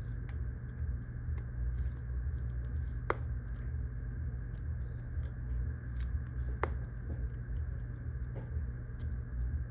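Steady low hum with a few sharp clicks, about three seconds in and again about six and a half seconds in. The clicks come from a pry tool working around an iPhone 15 Pro Max's frame and the side clips snapping loose.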